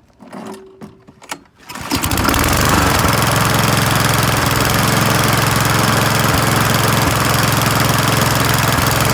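A lawnmower's small engine starts up about two seconds in after a few clicks, then runs steadily with an even pulse. It runs on a new spark plug and boot that have cured its no-start spark problem.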